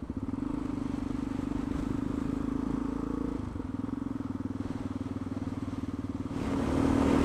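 Yamaha XT660X's single-cylinder engine running under way with a steady note. About three and a half seconds in the note dips briefly and settles lower, and it grows louder near the end.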